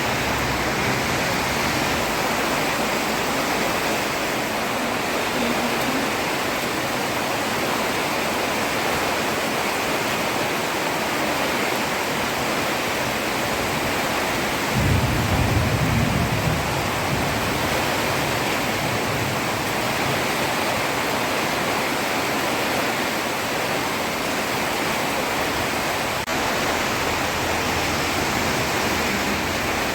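Heavy rain falling steadily on a road, a dense even hiss. About halfway through there is a brief low rumble.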